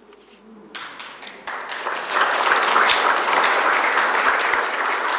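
Audience applauding, starting about a second in and swelling to full strength by about two seconds.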